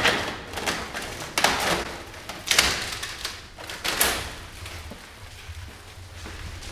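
Plastic stretch wrap crinkling and rustling as it is pulled off a large machine, in a series of short bursts that die down after about four seconds.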